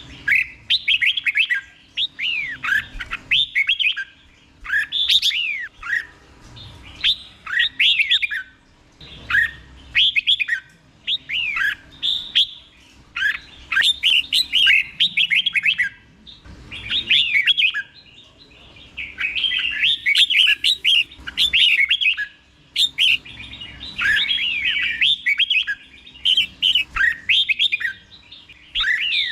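Red-whiskered bulbul singing: about a dozen short, clear phrases of quickly rising and falling whistled notes, one after another with brief pauses between.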